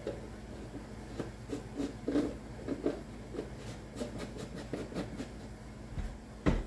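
Kitchen handling noises of food preparation: small irregular scrapes, rustles and clicks of a spoon, containers and food being worked while seasoning a chicken, with one solid knock near the end as something is set down.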